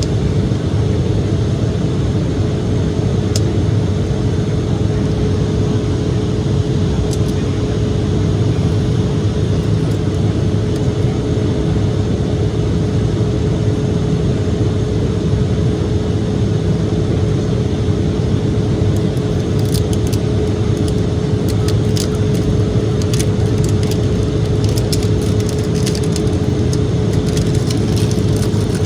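Steady cabin noise of an Embraer E-175 airliner in flight: the drone of its GE CF34 turbofans and airflow, with a constant engine tone riding over a deep rumble. Light clicks and rattles come and go in the last third.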